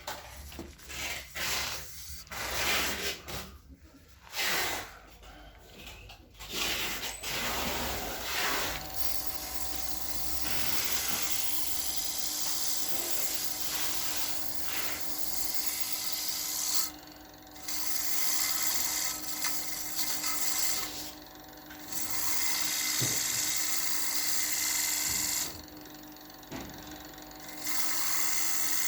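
Abrasive sheet sanding a wooden plate as it spins on a Powermatic PM2014 wood lathe, a rough rubbing hiss over the lathe's steady hum. For the first several seconds it comes as irregular scraping strokes; after that the hiss is continuous, breaking off three times when the sandpaper is lifted from the wood.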